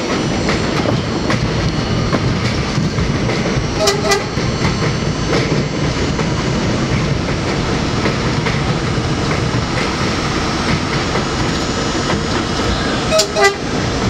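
Elevated subway train running at speed on the local track through a station without stopping: steady rumble with clickety-clack of the wheels over rail joints. The train's horn gives a quick pair of short toots about four seconds in and another pair near the end.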